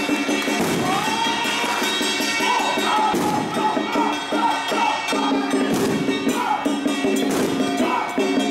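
Temple festival music: a wavering melody line over steady held lower tones, with a few sharp percussion crashes.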